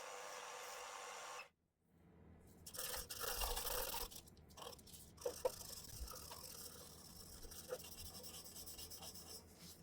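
320-grit sanding net rubbing against a walnut spoon blank spinning on a Shopsmith Mark 7 lathe, the fine final sanding stage. A steady hiss drops out about a second and a half in, then gives way to uneven rubbing and scraping.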